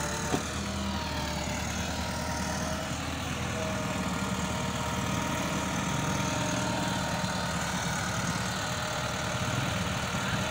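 Diesel tractor engine running steadily under load, pulling a trolley piled high with sugarcane.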